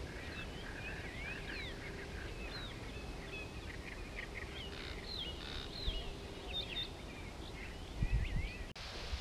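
Several songbirds chirping and whistling in many short, rapid phrases over a steady low rumble of outdoor background noise. Near the end come a couple of low thumps, then the sound cuts off abruptly to a plainer hiss.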